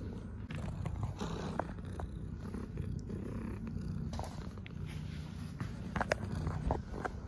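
Tuxedo cat purring close up: a steady, low, pulsing rumble, with a few soft rustles and ticks over it.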